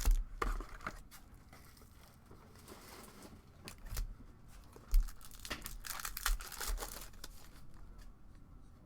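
Packaging of a box of basketball trading cards being torn open and its wrappers crinkled, with a few sharp handling clicks. The rustling is busiest between about five and a half and seven seconds in.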